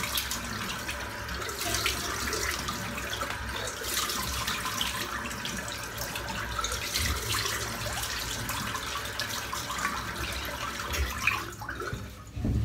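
Tap water running into a sink with irregular splashing as a freshly shaved head is rinsed; the water stops near the end.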